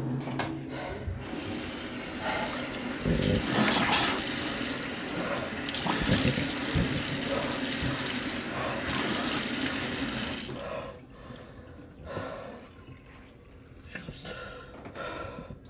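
Bathroom sink tap running hard into the basin while a man splashes water on his face. The running water cuts off about ten and a half seconds in, leaving a few softer splashes.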